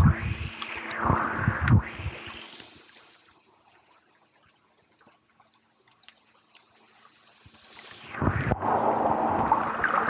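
Underwater water noise against a camera: gurgling and rushing with low thumps from swimming, dying away to near silence a few seconds in and coming back strongly about eight seconds in as the camera nears the surface.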